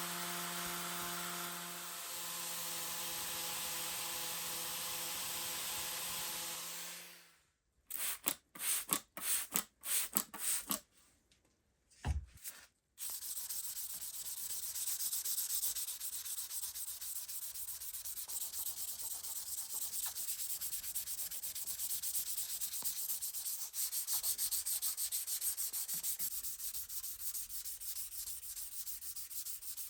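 An electric grinder runs steadily on an iron axe blade for about seven seconds, then stops. After a few brief separate strokes, the blade is rubbed back and forth by hand on a wet abrasive, giving a continuous rhythmic scraping.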